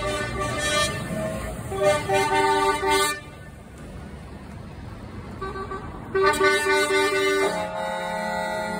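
Truck air horns blowing in long blasts, several horn tones sounding together: one blast for about the first three seconds, another starting about six seconds in, then a lower-pitched horn near the end.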